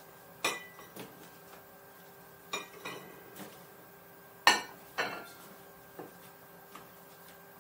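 Teal dinner plates and saucers clinking as they are set down and stacked on a countertop: about eight separate sharp clinks, the loudest about four and a half seconds in.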